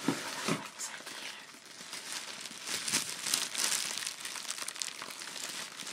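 White tissue paper being crumpled and rustled by hand, a continuous crinkling made of many small crackles.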